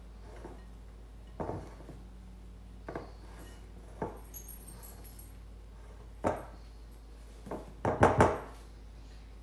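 Silicone spatula scraping and knocking against a glass mixing bowl while folding thick batter: a handful of separate strokes a second or so apart, with a louder quick clatter of knocks near the end.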